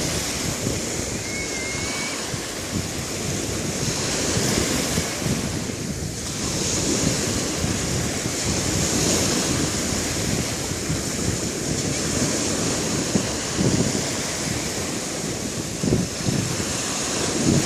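Sea waves washing onto the shore, a continuous surf that swells and eases every few seconds. Wind buffets the microphone with a few short thumps near the end.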